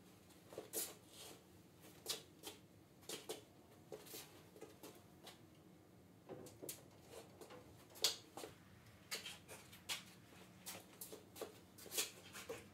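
Scattered light clicks and taps on a concrete shop floor, irregular, one to three a second, with the loudest knocks about eight and twelve seconds in: footsteps and small knocks as the scissor lift table and heavy benchtop are handled.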